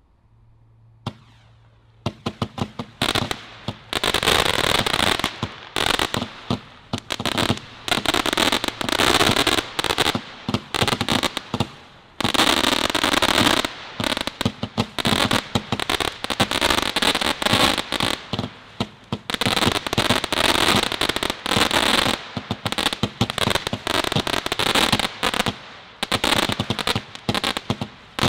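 Firework candle, the Celtic Fireworks 'Bam', firing: a rapid volley of sharp bangs and crackling that starts about two seconds in and goes on in waves, easing briefly now and then before building again.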